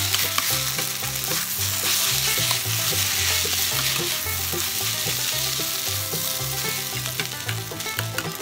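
Fried rice sizzling in a stainless steel pan as a metal spatula stirs and scrapes through it, with frequent sharp clicks of the spatula against the pan.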